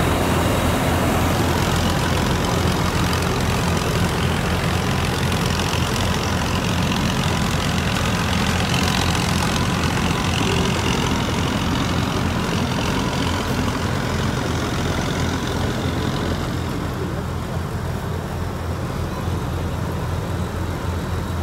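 Rice combine harvester engine running steadily with a deep, even rumble. The sound turns duller and a little quieter about three-quarters of the way through.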